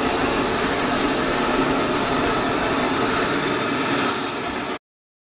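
Model aircraft motor running with a steady high whine over a rushing noise, slowly getting louder, then cut off abruptly near the end.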